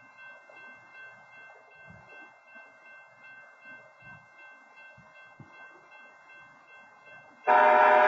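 Locomotive air horn starting abruptly and loudly near the end, a steady chord of several tones, sounding for the grade crossing. Before it there is only a faint hum with a few thin, steady high tones.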